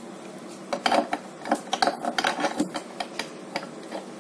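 Irregular sharp metal clicks and light scraping, several a second, as the steel feed screw of an electric meat grinder is pushed and turned into the metal grinder head to fit it.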